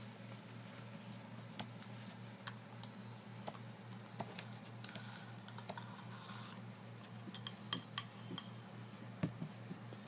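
Scattered small clicks and taps over a steady low hum, with a few louder taps near the end.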